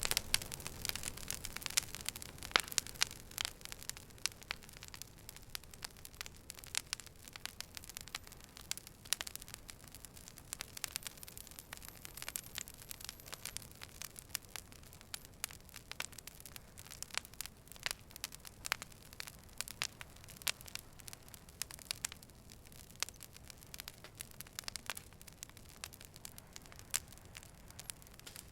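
Wood fire burning, with irregular sharp crackles and pops over a low steady hiss.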